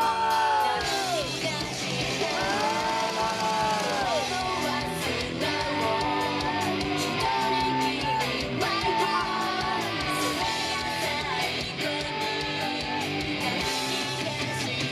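A female idol group singing a rock song live, women's voices holding and sliding between notes over a band backing with electric guitar and a steady beat.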